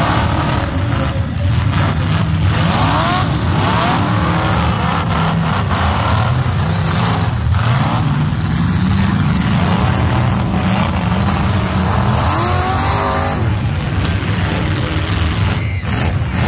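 Engines of full-size demolition derby cars running loudly together, with revs rising in sweeps about three seconds in and again near the end.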